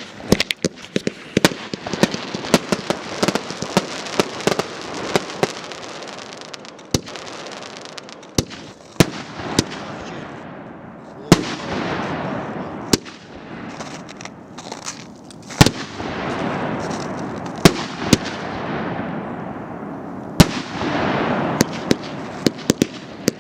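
LDC309 Armada fireworks cake (90 shots of 1.2" and 15 of 2") firing in rapid succession: a run of sharp launch thumps and aerial bursts over a continuous crackling hiss. Bigger booms stand out every second or two from about seven seconds in.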